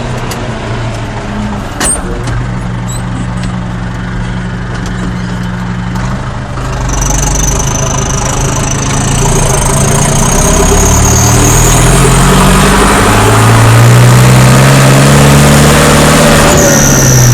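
Old Case XL tractor's turbocharged diesel engine running, then revved up from about seven seconds in, its pitch climbing for several seconds. A high, steady whistle from the turbo spooling up comes in as the revs rise and holds over the engine noise.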